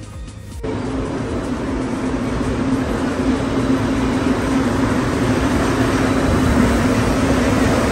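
Montreal Metro Azur rubber-tyred train pulling into an underground station. A loud steady rumble with a droning hum starts abruptly about half a second in and slowly grows louder as the train arrives.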